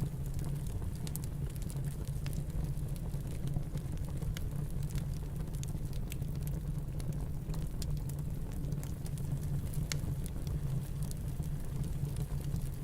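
Wood fire crackling, with scattered sharp pops, over a steady low rumble of snowstorm wind.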